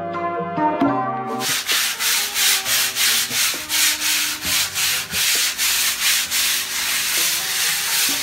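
Hand sanding a painted wall with a folded sheet of sandpaper: rapid back-and-forth scratching strokes, several a second. They start about a second and a half in, after a short stretch of music that carries on faintly beneath them.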